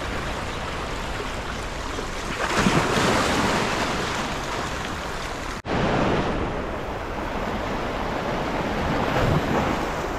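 Small sea waves washing in over shoreline rocks, swelling louder and falling back a few times, with wind buffeting the microphone. The sound cuts out for an instant a little past the middle.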